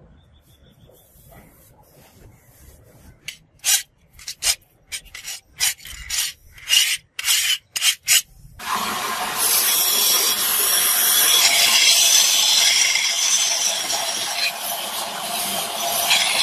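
A file scraped across a hardened steel sword blade in about a dozen short strokes, a file test of the blade's hardness. Then, from a little past halfway, a steady loud grinding as the blade is held against a belt grinder's abrasive belt.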